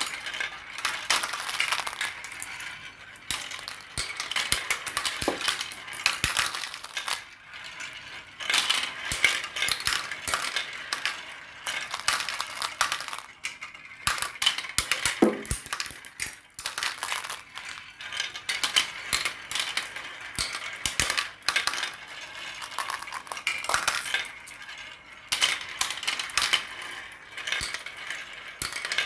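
Many marbles clattering and clicking against each other and the track as they roll down a marble run, in dense bursts of rapid clicks with short lulls between them.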